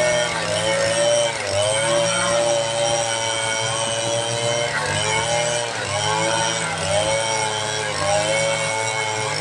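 Two-stroke chainsaw running at high revs while cutting teak, its pitch dipping briefly and recovering again and again as the chain bites into the wood under load.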